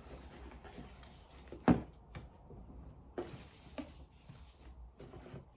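Sunglasses packaging being opened and handled by hand: faint rustling with a few light knocks, and one sharp knock just under two seconds in.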